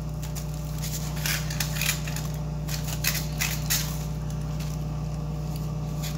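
Crinkling and rustling of aluminium foil and a plastic food glove as a gloved hand rubs seasoning into a salmon fillet in a foil-lined pan. The crinkling comes in two short flurries, about a second in and about three seconds in, over a steady low hum.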